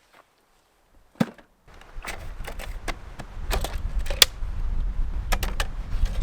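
A single sharp knock about a second in, then from about two seconds in a run of irregular clicks and light knocks over a low rumble.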